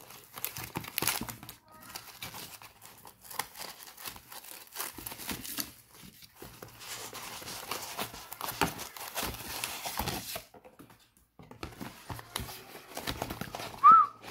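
Cardboard box and foam packaging rustling and crinkling in irregular bursts as a speed controller is worked out of its foam insert, with a brief lull about two-thirds through. Near the end, a short, loud, high squeak.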